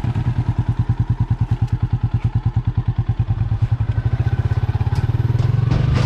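Small underbone motorcycle's single-cylinder engine chugging at low revs as it pulls through mud, a steady throb of about ten beats a second, with a few light clicks near the end.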